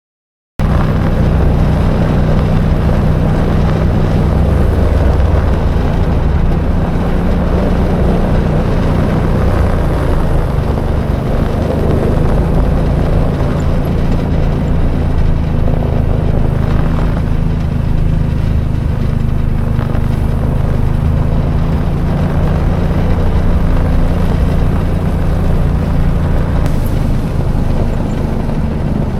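ATV engine running steadily, the sound of the quad being ridden with its trailer.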